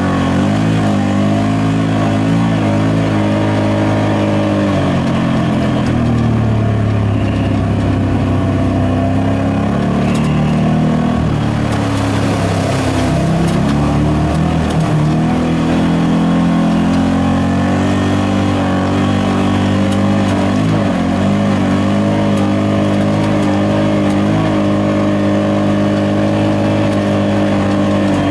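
Side-by-side UTV engine running under throttle, its pitch rising and falling as it drives the trail. About halfway through there is a rush of splashing as it crosses shallow water.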